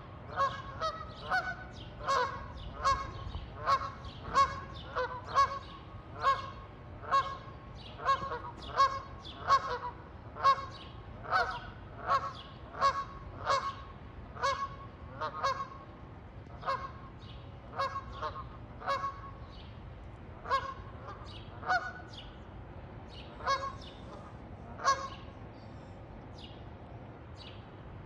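Canada geese honking: a long run of short, repeated honks, about two a second, thinning out in the second half and stopping a few seconds before the end.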